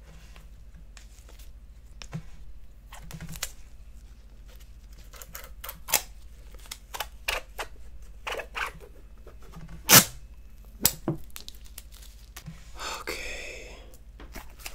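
A plastic honeycomb container being opened: clicks and scrapes as a utensil works around the sealed lid, a sharp snap about two-thirds of the way through, and a crinkling rustle near the end as the lid comes away.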